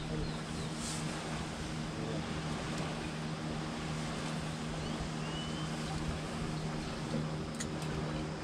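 A 150-hp outboard motor idling, a steady low hum.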